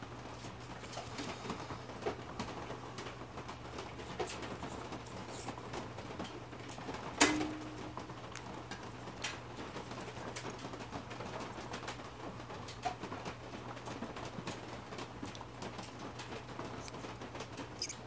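Small clicks and taps as a brass saxophone key with glued cork layers and a small tool are handled in the fingers, with one sharper click about seven seconds in, over a steady low hum.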